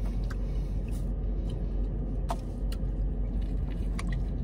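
Steady low rumble of a car idling, heard from inside the cabin. A few soft clicks from eating sit on top of it, with a bite of food near the end.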